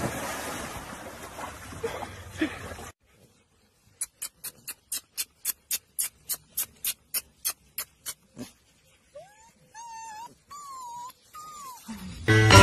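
Water splashing as a dog thrashes in a swimming pool, then a run of quick sharp clicks, about three a second, then a few short high whines from puppies, each rising and falling.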